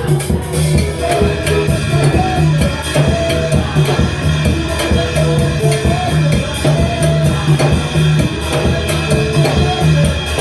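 Praise music played by a band: a drum kit keeping a steady beat with cymbal strokes, held bass notes and a melody line over it.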